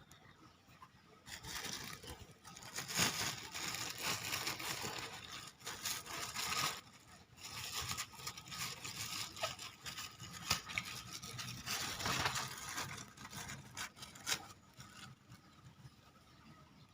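Irregular rustling and scraping handling noise close to the microphone, with sharp clicks here and there. It starts about a second in and dies down a couple of seconds before the end.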